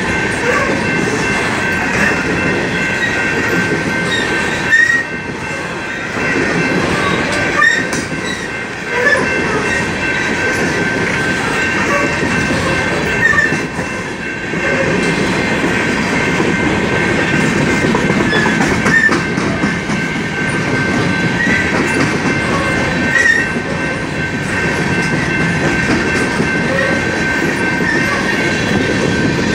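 BNSF coal train's hopper cars rolling past at close range: a steady rumble and clatter of steel wheels on the rails, with short louder clunks every few seconds. A steady high-pitched squeal rings over it.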